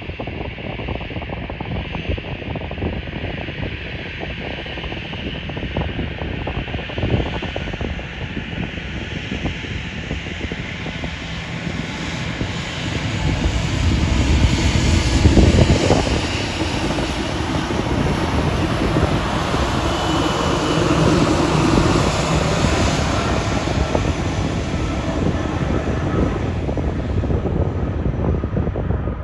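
Boeing 777-300ER's twin GE90-115B turbofans at takeoff power on the takeoff roll, a steady jet rumble. It swells about 13 seconds in, is loudest as the aircraft passes close a little past halfway, and stays strong as it rotates and climbs away.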